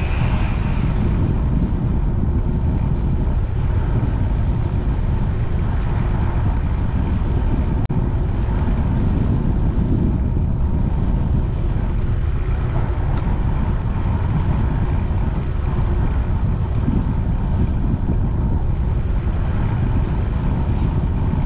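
Steady low rumble of wind buffeting the microphone of a bike-mounted action camera as the bicycle rolls along.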